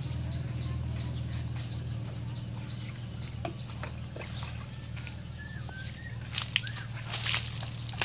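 Water scooped from a plastic bucket with a plastic dipper, with a few short splashes about two-thirds of the way in, over a steady low hum. A few faint bird calls can be heard.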